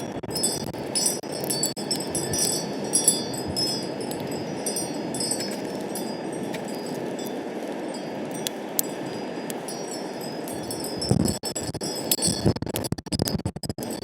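Wind chimes ringing in clusters of high, clear tones over the steady rush of wind. Near the end, gusts buffet the microphone in uneven bursts.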